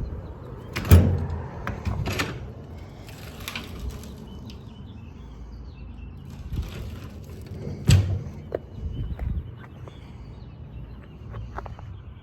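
Metal doors on a truck service body being handled, with sharp clanks about a second in, two seconds in and near eight seconds, and smaller clicks and rattles between them.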